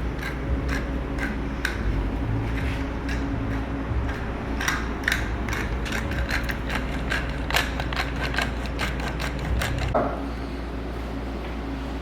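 Hand pepper mill grinding fresh black pepper: a run of quick, irregular ratcheting clicks that stops about ten seconds in, over a steady low hum.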